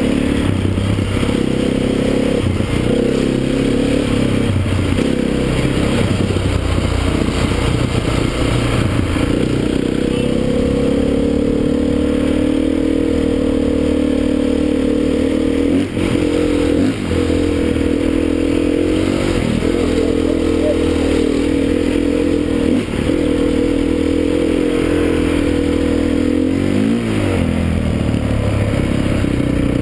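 Enduro dirt-bike engine running under load while riding, its pitch rising and falling with the throttle. There are a few brief dips in the engine note in the second half.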